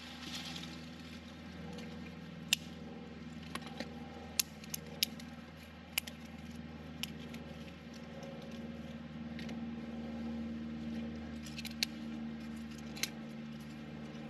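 Irregular sharp clicks and taps, about nine of them scattered through, over a steady low hum.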